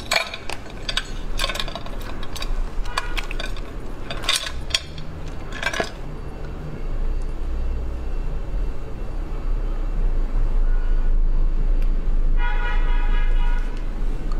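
Raw spiny lobster shell cracking and snapping as it is twisted apart by hand, a run of sharp clicks over the first six seconds. After that come a low rumble and a brief steady tone about a second long, a little over twelve seconds in.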